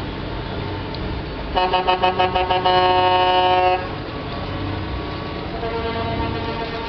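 Truck horn sounding a rapid series of short blasts about a second and a half in, then held steady for about a second. It comes back fainter near the end, over a low rumble.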